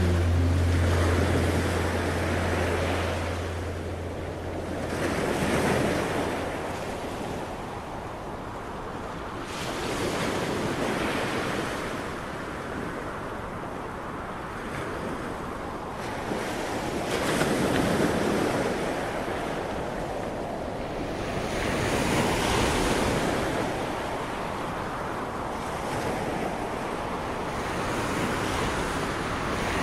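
Ocean surf: waves breaking and washing in, the rush swelling and fading again every four to five seconds.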